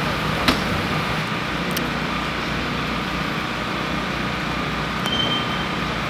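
Steady rumble of fire apparatus engines running, with a sharp click about half a second in.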